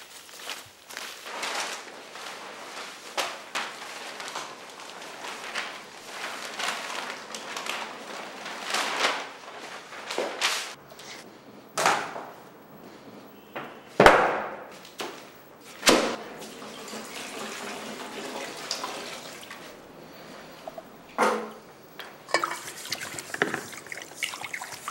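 Rustling of leafy plants being handled and cut, then sharp wooden knocks as a large canvas is lifted onto a wooden easel, and near the end a brush scraping as it stirs paint in a bucket.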